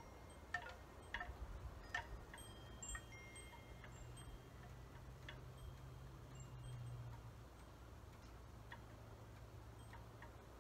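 Faint metallic chimes ringing now and then at several different pitches, most often in the first few seconds, over a steady low hum.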